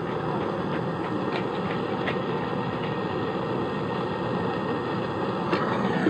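Handheld gas torch burning with a steady hiss while brazing a joint on a refrigerator's copper tubing, with a few faint ticks.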